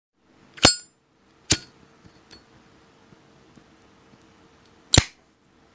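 Three sharp metallic clicks from a Zippo lighter. The first, about half a second in, is the loudest and rings briefly. A second comes about a second later and a third near the end.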